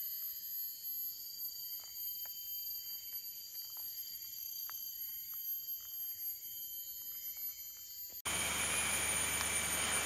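Rainforest insect chorus: a steady, high-pitched whine at several pitches at once, with faint scattered ticks. About eight seconds in it cuts abruptly to a much louder, even hiss that keeps its high whine.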